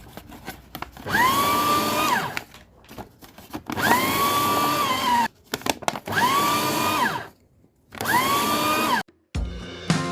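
Electric paper shredder running in four short bursts, shredding brown paper shopping bags. Each burst is a motor whine that rises as it starts and drops as it stops.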